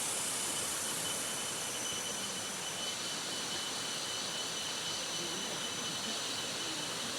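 River water rushing steadily, a constant even roar.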